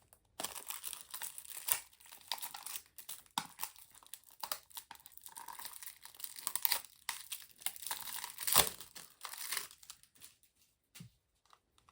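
Crinkling and tearing of the packaging of a false-eyelash set being handled, a run of irregular crackles and small clicks with a sharper snap about eight and a half seconds in.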